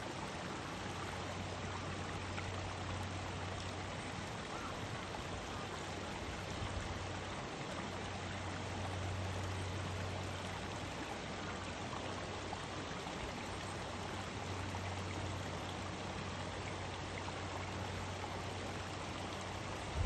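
Mountain stream water flowing steadily over rocks, a continuous even rush of running water.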